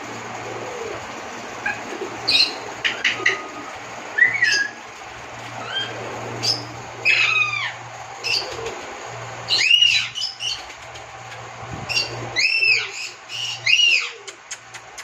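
Lovebirds chirping: short, sharp arched calls, some singly and some in quick runs, busiest around the middle and near the end, over a low steady hum.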